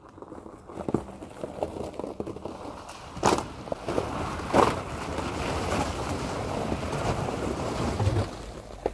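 First-generation Honda Ridgeline pickup driving through a frozen, muddy puddle, its tyres crunching broken ice and sloshing through the slushy water. There are two sharp ice cracks a little over a second apart, near the middle.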